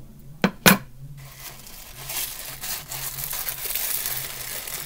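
Two sharp knocks about half a second in, then blind-box packaging crinkling steadily as it is handled and opened to get at the toy figure inside.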